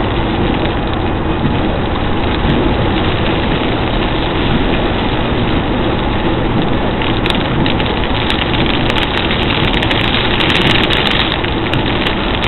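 Car driving through heavy rain: steady road and engine noise with rain beating on the car, and from about seven seconds in, dense sharp ticks of drops striking the body and glass.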